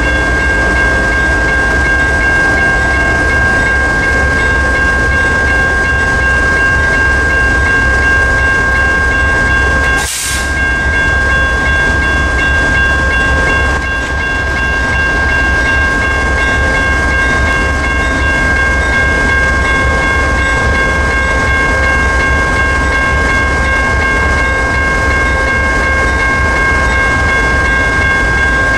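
A crossing's electronic bell rings continuously in steady high tones over the low, steady running of a stopped CSX GE ES44AH diesel locomotive. A short hiss cuts in about ten seconds in.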